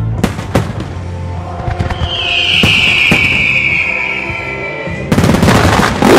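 Fireworks display: several sharp bangs, with a high, slowly falling tone from about two to five seconds in, then a dense crackling from about five seconds in. Background music runs underneath.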